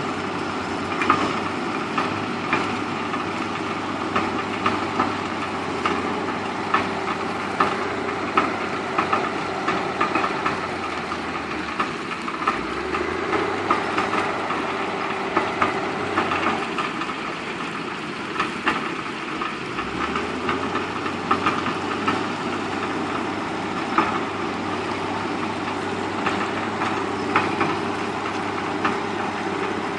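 Heavy diesel construction machinery running steadily, with frequent sharp knocks and clanks, and the engine note shifting a couple of times.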